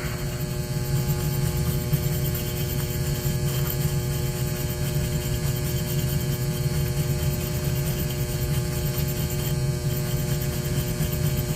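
Steady machine hum: a strong low drone with several steady higher tones, unchanging throughout.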